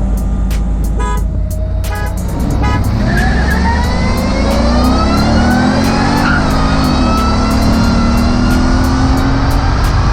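V8 engine accelerating hard at full throttle, its pitch climbing, dropping at a gear change about six seconds in, then climbing again. Background music with a steady beat plays under it.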